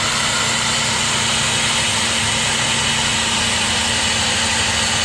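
Tormach PCNC 440 CNC milling machine running, its spindle giving a steady hum under a constant hiss of the compressed-air blast, while it takes a light skim cut of about five thousandths.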